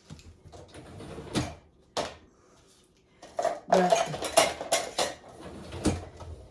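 Dishes and silverware clinking and clattering as they are handled: a few separate knocks, then a quick run of clinks in the second half.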